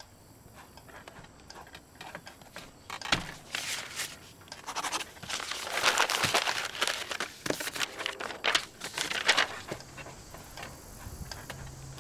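Sheets of paper crumpled and crinkled by hand in a run of loud rustling bursts, starting about three seconds in and dying away after about nine seconds. Faint pen strokes on paper come before it.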